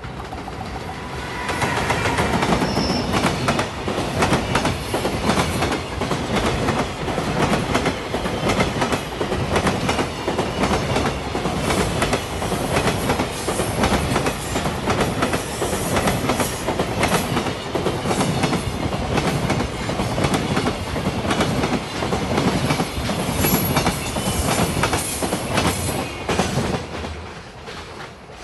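JR Freight EF210 'Momotaro' electric locomotive and its long train of container wagons passing: the wheels clatter over the rail joints in a dense, fast run of clicks. It builds up about two seconds in and fades near the end as the last wagons go by.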